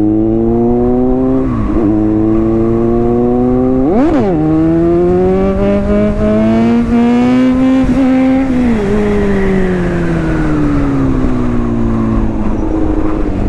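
Kawasaki Z900's inline-four engine pulling hard through the gears, the revs climbing with quick upshifts about two and four seconds in. After about nine seconds the throttle is rolled off and the revs fall steadily.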